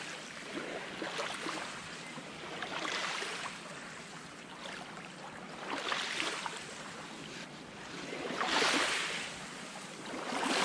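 Small waves lapping on a loch shore, each wash swelling and fading every two to three seconds over a steady hiss.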